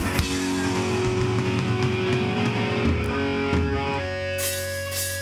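Electric guitars and bass left ringing through their amplifiers after a hardcore song's final hit, with held notes and a low bass drone and no drums. About four seconds in, one steady higher tone takes over.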